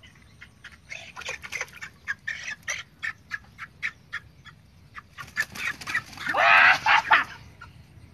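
Chicken giving a series of short, sharp squawks, then one long, loud, harsh squawk about two-thirds of the way in: the alarm calls of a hen being grabbed and pulled out of the water.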